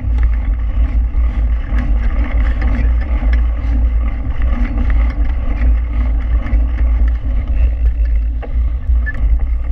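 Mountain bike rolling fast on a gravel dirt road, heard through a handlebar-mounted GoPro: a steady low rumble of wind and tyre noise, with many small clicks and rattles from the gravel and the bike.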